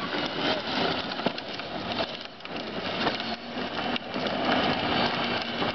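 Kids' battery-powered ride-on toy jeep driving over asphalt: hard plastic wheels rolling with a continuous gritty noise, with a few small knocks along the way.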